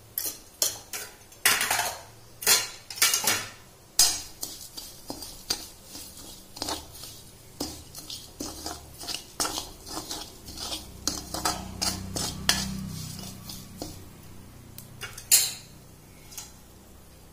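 Metal spatula stirring and scraping dry spice seeds around a metal kadhai: irregular scrapes and clinks of metal on metal, with one loud knock near the end before it thins out.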